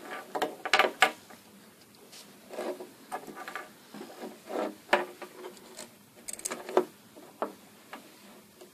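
Alligator clips and their leads being handled and clipped together on a wooden tabletop: irregular metallic clicks, rattles and knocks.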